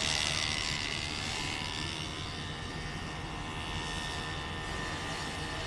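49cc two-stroke pocket bike engine buzzing at high revs, a high-pitched whine that is loudest at first and slowly fades as it pulls away.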